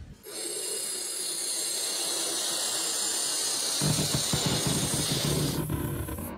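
Balloon pump blowing air into a latex balloon as it inflates: a steady hiss, with a lower rumble joining about four seconds in, the hiss cutting off near the end.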